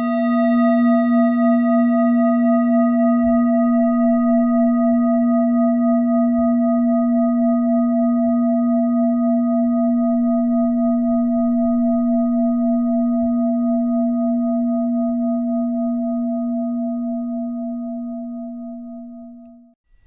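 Meditation bell struck once and left to ring: a low, wavering hum with several higher overtones that slowly dies away over nearly twenty seconds and cuts off abruptly near the end.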